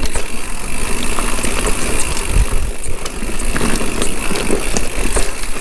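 Mountain bike descending a rough downhill trail at speed: tyre noise on dirt and rock, with frequent clicks and knocks from the bike rattling, over a heavy rumble of wind on the microphone.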